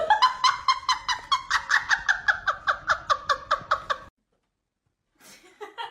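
An animal giving a rapid series of short calls, about five a second, each dropping in pitch; it stops abruptly about four seconds in.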